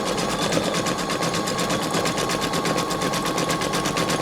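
Computerized embroidery machine stitching at speed: a rapid, even needle rhythm with a steady motor whine.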